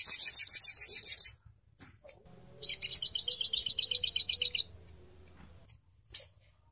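Olive-backed sunbird (sogon ontong) singing fast, high trills of rapidly repeated notes, about ten a second: one trill ends about a second in, and a second one of about two seconds follows after a short pause. A single short note comes near the end.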